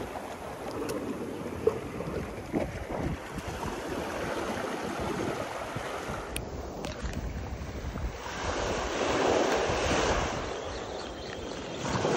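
Sea surf washing onto the beach, with wind buffeting the microphone; a wave surges louder about eight seconds in and then eases off.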